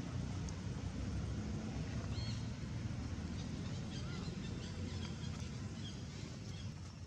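Outdoor ambience: a steady low rumble with a few faint, short high chirps scattered through the middle.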